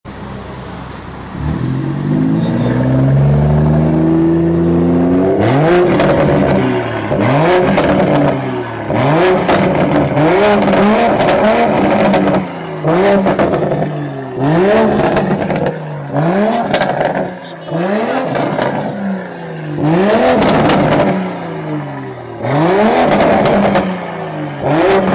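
BMW Z4's engine idling at first, then revved hard again and again, the pitch rising and dropping back about every two seconds, with a loud exhaust rasp at each peak.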